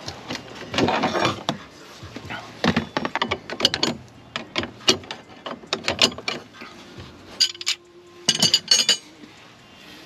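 Tools and loose items being pulled out from under a pickup truck's seat: a run of knocks, rattles and scrapes, then several sharp, ringing metal clinks about three quarters of the way in.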